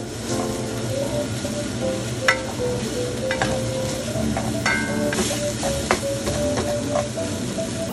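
Stir-fried vegetables and beef sizzling in a stainless steel pan while being stirred and tossed with a spatula, which scrapes and knocks against the pan a few times.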